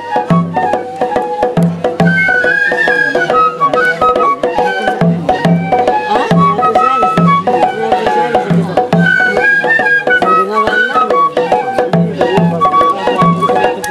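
Japanese festival hayashi music: a bamboo transverse flute playing a winding melody over a steady drum beat.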